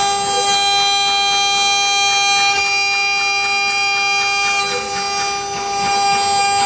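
Spindle of a 6090 mini CNC router running steadily with a high, unchanging whine while engraving wood, dipping briefly in level about five seconds in.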